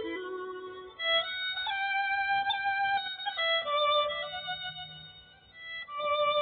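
Background music: a slow violin melody of held notes in two phrases, each fading away before the next begins.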